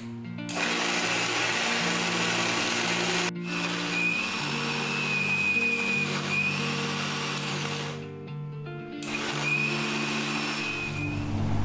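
Electric mixer grinder with a steel jar running at full speed, grinding soaked soya chunks into a paste, with a high motor whine over the rushing noise. It is switched off about eight seconds in and then run again for a couple of seconds. Soft background music plays underneath.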